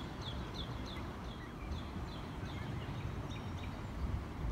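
Canada goose goslings peeping: a run of short, high, falling peeps, about four a second, thinning out in the second half, over a low rumble.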